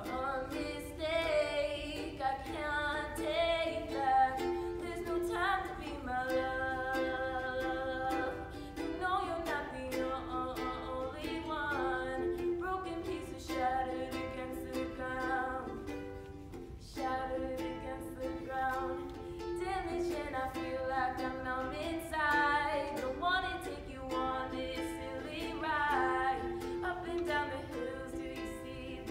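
A woman singing while strumming a ukulele, with a short break in the music about halfway through.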